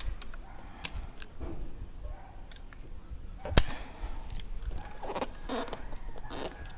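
Multi-pump bullpup air rifle firing a 12-grain slug on a six-pump charge: one sharp shot about three and a half seconds in, preceded by a few light handling clicks.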